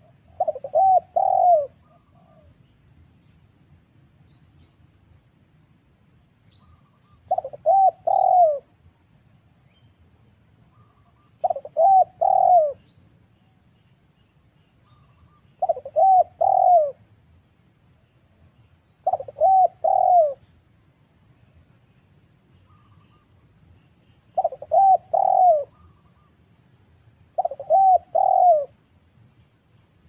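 Spotted dove (tekukur) cooing, used as a lure call for wild doves: seven short phrases of about three coos each, repeated every few seconds.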